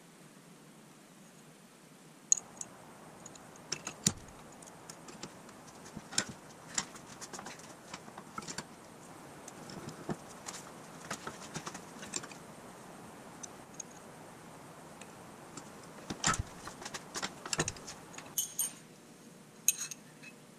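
Scattered, irregular metallic clicks and clinks from handling small steel parts: a drilled flat steel bar and small flanged steel nuts being fitted and knocked against a cast-iron bench vise. A busier run of clinks comes about three quarters of the way through.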